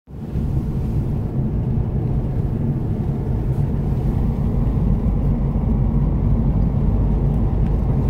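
Steady low road rumble of a car driving along a highway, heard from inside the moving car.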